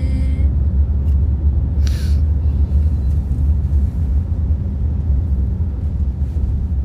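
Steady low rumble of a moving passenger van heard from inside its cabin. A held hummed note ends about half a second in, and there is a brief rustle about two seconds in.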